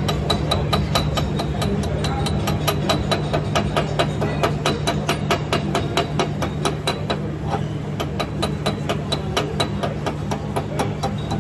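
Welder's chipping hammer striking slag off a weld on steel, rapid sharp metallic knocks at about four a second, over a steady low hum.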